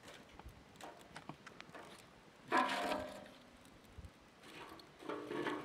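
Light clicks of dry sticks being laid into a sheet-metal barrel stove, with one short pitched call about halfway through and a fainter one near the end.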